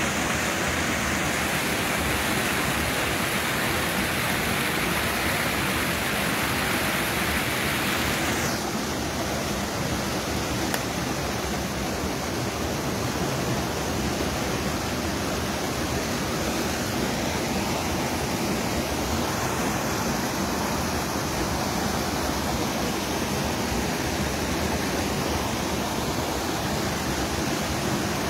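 Fast river water rushing and splashing over rocks and small cascades, a steady rush; about eight seconds in the hiss turns a little duller.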